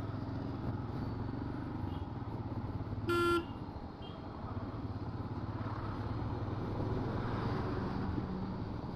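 Road traffic rumbling, with one short vehicle horn toot about three seconds in.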